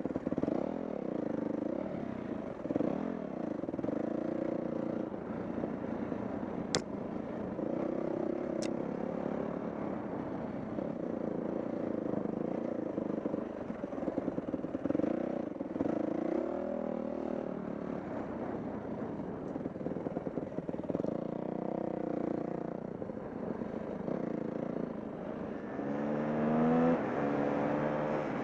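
Dirt bike engine running on a trail, its revs rising and falling with the throttle, then climbing near the end as it accelerates. Two sharp clicks stand out about a third of the way in.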